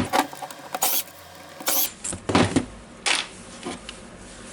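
Scattered sharp clicks and knocks, about six in four seconds, of tools and parts being handled as a Makita DGA504 angle grinder's gear head is taken apart.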